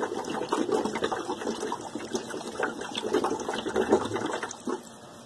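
Purge hose spitting water and air into a bucket of water, a fast, irregular bubbling and splashing that eases near the end. It is trapped air being purged from one circuit of a hot-water baseboard heating system; bubbles mean air is still coming out.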